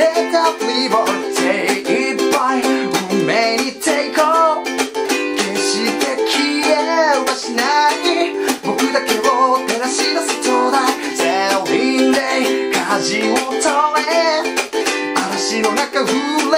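A man singing a Japanese rock song in a driving, forward-leaning style, accompanying himself on a steadily strummed ukulele.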